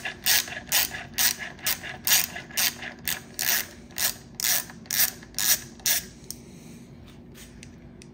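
Ratcheting bit driver clicking in short bursts, about two a second, as it backs out the mounting bolt of a mechanical disc brake caliper. The clicking stops about six seconds in, once the bolt is out.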